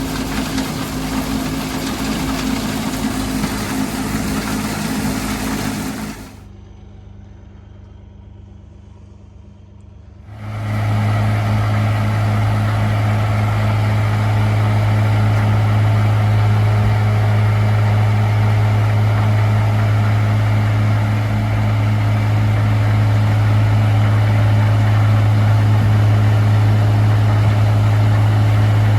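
John Deere 4440 tractor running a forage harvester, its diesel engine working steadily under load. About six seconds in the sound drops to a much quieter stretch, and about ten seconds in a loud, steady, low engine hum takes over for the rest.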